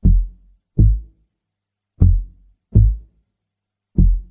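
Deep bass-drum thumps in a slow two-beat pattern: pairs of booming hits about three-quarters of a second apart, a new pair every two seconds, each hit dying away quickly.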